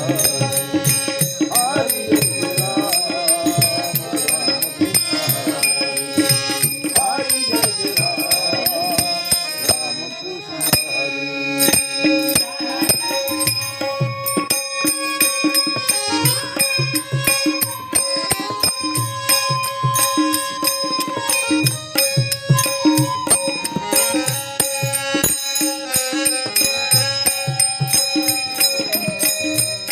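Marathi Varkari bhajan music: small hand cymbals and drum strokes keep a fast, steady rhythm under long held melodic notes. A voice sings in the first several seconds.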